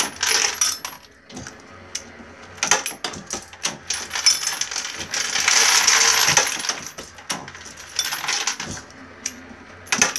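Mark 7 motor-driven 650 progressive reloading press cycling smoothly while processing 9mm brass: repeated clicks and metallic clinks of cases and the press, with a longer rattling rush about five seconds in.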